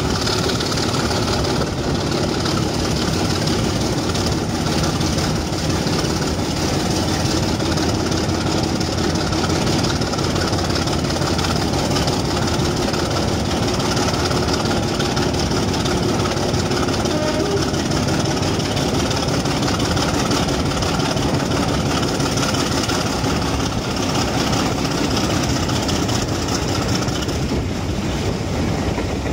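Class 24 diesel locomotive's Sulzer six-cylinder engine working hard, heard inside a tunnel, together with the steady clatter of the train's wheels on the rails. The train comes out of the tunnel near the end.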